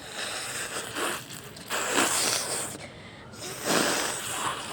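A woman blowing her nose hard: about three long, forceful blasts of breath through the nose, the middle one the loudest.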